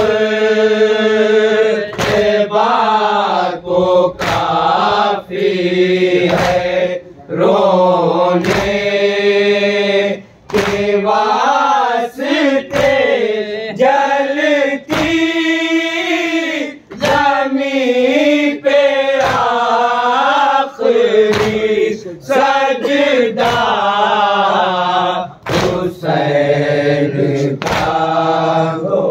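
A group of men chanting a Shia mourning lament (noha) in unison, led by one voice, with sharp slaps of hands on chests (matam) roughly once a second.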